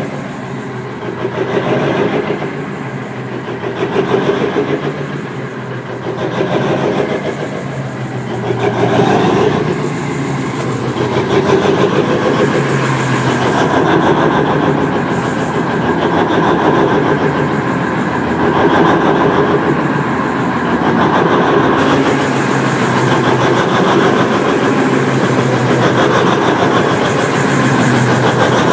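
Large mining haul truck's diesel engine running close by, a steady heavy hum. Over the first several seconds it swells and eases about every two seconds, then holds steady.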